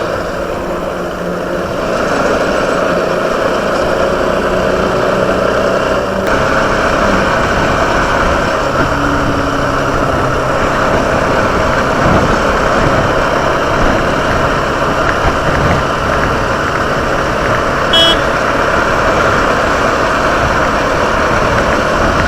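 Motorcycle riding at a steady, easy pace: engine running under wind and road noise, with one short high-pitched beep late on.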